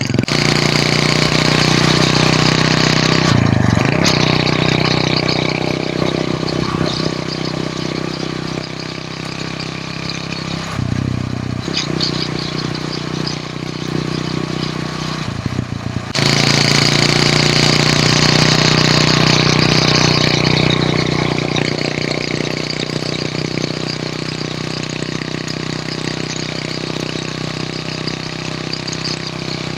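Hero Honda CD100's small four-stroke single-cylinder engine running under way, with a steady hiss over it. The engine note drops back and picks up again several times, and is loudest from about sixteen seconds in.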